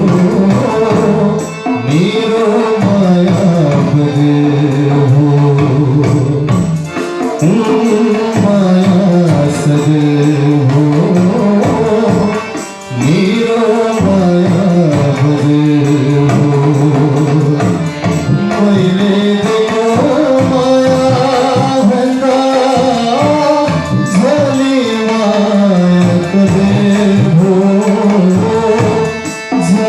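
Nepali song: a man sings long held phrases over an instrumental backing with hand drums, pausing briefly between lines.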